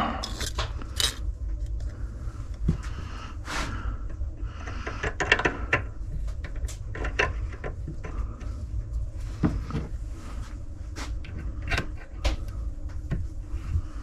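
Scattered clicks, knocks and clatter of things being handled and set down, over a steady low rumble.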